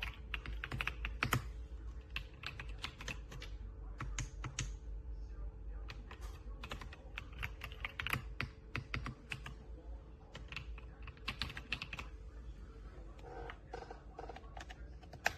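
Typing on a mechanical keyboard: irregular runs of key clicks with short pauses between them.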